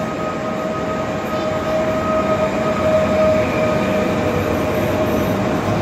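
Regional electric multiple-unit train running along a station platform: a steady rumble of wheels and bogies with a steady whine over it that fades out about four seconds in.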